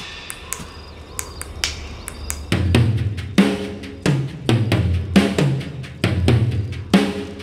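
Drum kit played with water pooled on the heads: light scattered taps at first, then from about two and a half seconds in, heavy tom and bass drum strokes in an uneven groove, each with a low ringing tone that drops slightly in pitch.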